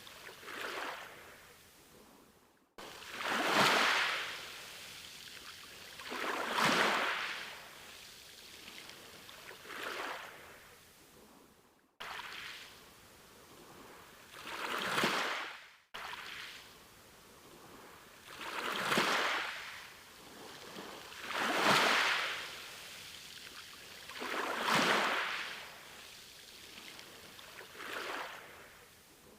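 Sea waves washing in, each one swelling and fading about every three seconds. The sound cuts off abruptly three times, each time restarting straight away.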